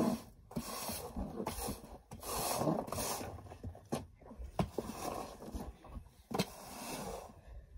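Push broom sweeping a concrete floor: repeated scraping strokes about once a second, with a few sharp knocks in between.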